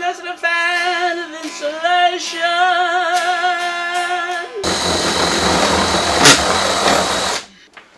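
A man singing long held notes with vibrato while strumming an electric guitar. About four and a half seconds in, this gives way to a loud, harsh noise that lasts about three seconds and cuts off suddenly.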